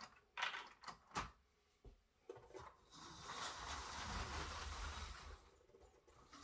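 A few sharp plastic clicks in the first second or so, then from about three seconds a Lego 9V-track train running: the steady hum of its Power Functions motor, fed through a rewired 9V motor's pickups, with the rattle of wheels on plastic track, dipping briefly near the end.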